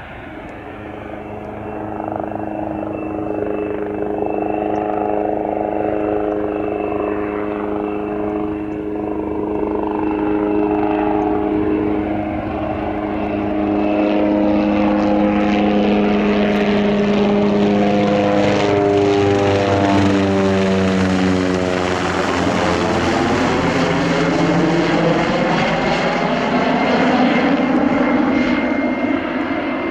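A propeller airplane flying over: its engine and propeller drone grows louder, then drops in pitch as it passes about twenty seconds in, turning into a broad rushing sound as it moves away.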